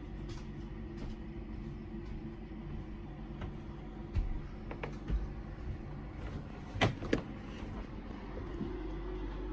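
A steady low hum in a small boat cabin, with a few soft knocks and clicks, two sharper ones close together about seven seconds in.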